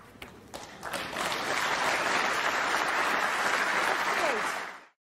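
A few sharp clicks of snooker balls, then a snooker audience applauding, which greets a century break; the applause cuts off suddenly near the end.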